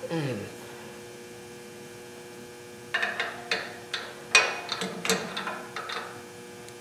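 Irregular metal clicks and knocks, starting about three seconds in, as a bolt is worked by hand into a tight-fitting hole in a truck's front-suspension strut rod bracket, over a steady mains hum.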